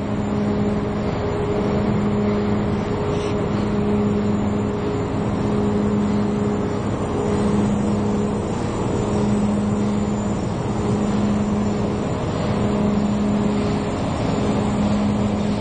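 Steady machinery and wind noise on an offshore drilling rig, with a low hum that pulses on and off about every two seconds and a steadier higher hum over it.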